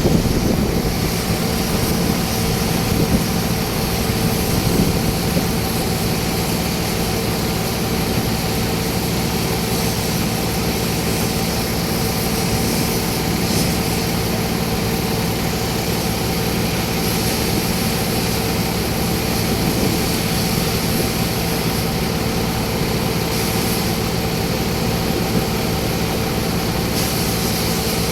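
An engine running steadily at constant speed, a continuous drone with a hiss over it.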